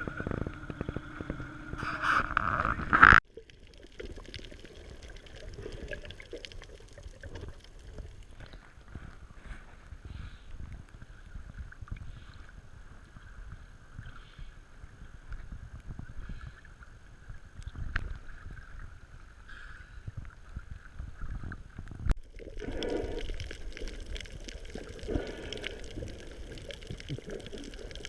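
Water sloshing and gurgling, with a faint steady hum behind it. The sound changes abruptly twice: a louder stretch ends suddenly about three seconds in, and it grows louder again near the end.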